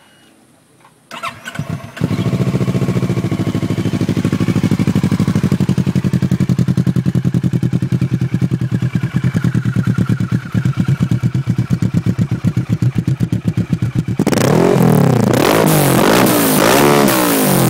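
Kawasaki ER-6n 650 cc parallel-twin engine with a GPR slip-on exhaust, cranked on the starter and catching after about a second, then idling with an even pulsing beat. Near the end it is revved up and down several times, louder.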